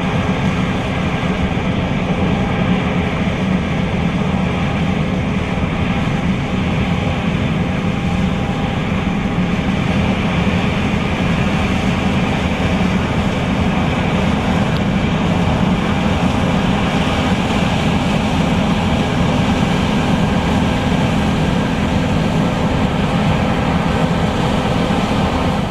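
John Deere S660 combine harvester running steadily while harvesting soybeans, an even, continuous machine drone with no change in pace.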